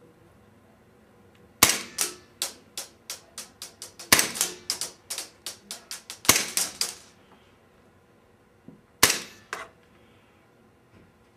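KWA green-gas blowback airsoft pistol fired rapidly through a chronograph: sharp pops about three a second for around five seconds, the slide blowing back on each shot. After a pause of about two seconds, two more shots near the end.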